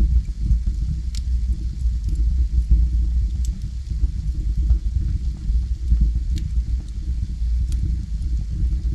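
Wood fire burning in a fireplace: a steady low rumble of flames with scattered sharp crackles and pops from the burning logs, a few seconds apart.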